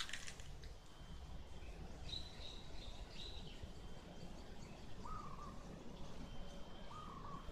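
Faint outdoor ambience of birds calling in the background over a steady low rumble. A few quick high chirps come a couple of seconds in, then two short calls about two seconds apart.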